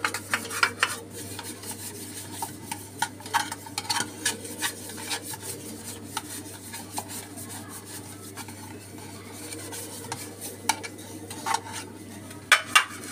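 Fingers rubbing ghee around the inside of an aluminium cake tin, with light scraping and scattered small knocks of the tin being tilted and turned. A few louder knocks come near the end, and a steady low hum runs underneath.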